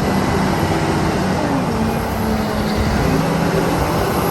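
Engine of a wheel loader running with a steady rumble.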